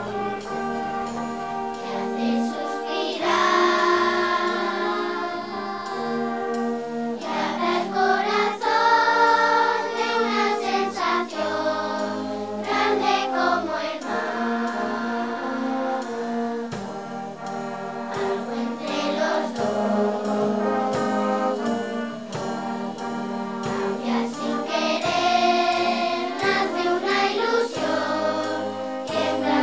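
Children's choir singing with a youth wind band of saxophones, trombones and tuba playing the accompaniment.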